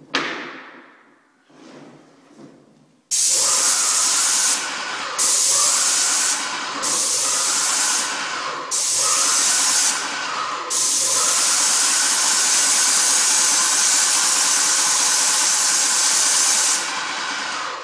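Paint sprayer spraying in bursts: four short blasts of hissing, then one long one of about six seconds. Its motor keeps humming steadily in the gaps between trigger pulls. A single knock sounds at the very start.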